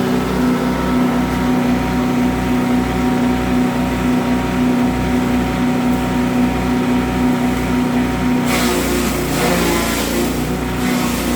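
Grass chopper machine running steadily with a constant hum and a low pulsing beat. About eight and a half seconds in, a loud noisy rush of a few seconds as material goes through the blades, the machine's note dipping under the load before it settles back.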